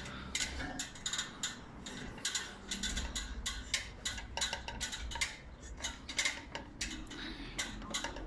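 Metal ladder clicking and clanking as someone climbs it carrying a large panel: a run of irregular knocks and taps, several a second.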